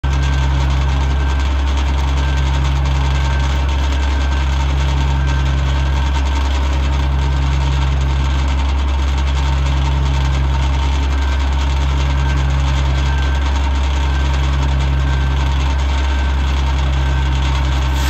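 Oliver 77 tractor's six-cylinder engine running steadily, belt-driving a circular sawmill blade that spins without cutting. The drone has a slow, regular waver about every two seconds.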